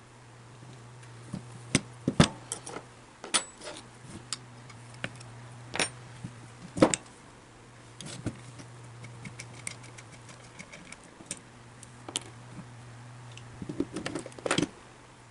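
Small metal parts and hand tools clicking and clinking irregularly on a workbench during the hand disassembly of a small electric motor, with a quick run of clinks near the end, over a steady low hum.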